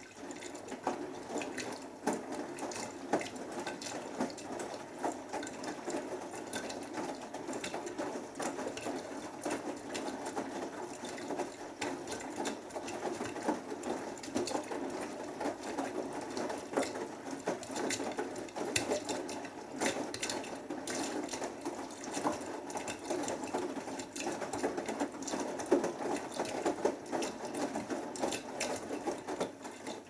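Beko WMB81445L washing machine in its main wash, the drum turning and tumbling a load of laundry through the wash water, with splashing and sloshing over the motor's running.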